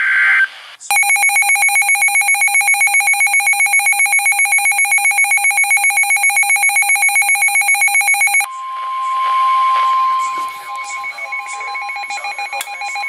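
Weather-radio alert tones: a brief data burst, then a rapid electronic beeping alarm for about seven and a half seconds. It is followed by the single steady weather-radio warning tone, about 1050 Hz, over static.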